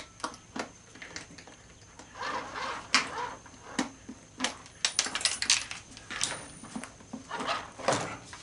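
Irregular clicks, knocks and clatters of plastic and small metal parts being handled and pried at while dismantling an animatronic toy horse, with a quick run of clicks about five seconds in.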